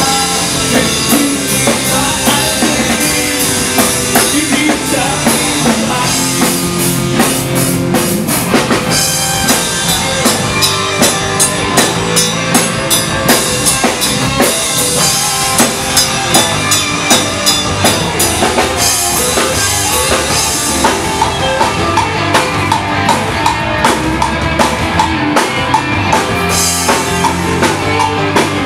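Live rock band playing loud: electric guitars, bass guitar and a drum kit driving a steady, fast beat.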